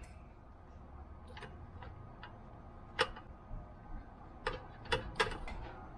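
Wooden chopsticks clicking and tapping against an air fryer's wire-mesh basket as pieces of raw chicken breast are set in, a few irregular light clicks with the sharpest about three seconds in and a cluster near the end.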